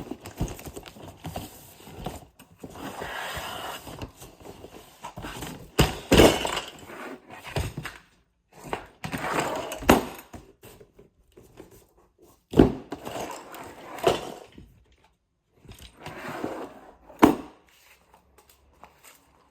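Cardboard box and its packing being handled and pulled about: rustling and scraping, broken by several sharp knocks.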